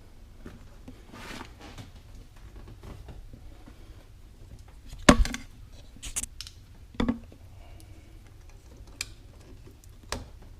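Handling of a plastic light mount and its connectors: a few sharp clicks and knocks, the loudest about five seconds in, with light rustling between.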